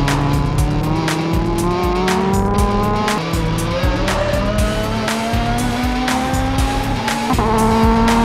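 Racing touring car engine pulling hard at full throttle, its pitch climbing steadily for several seconds, then dropping at an upshift near the end and starting to climb again. Background music with a steady beat plays underneath.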